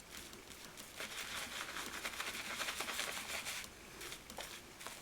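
Shaving brush being worked through thick glycerin shaving-soap lather: a wet, crackling hiss of many fine ticks, strongest in the middle and dropping off a little before the end.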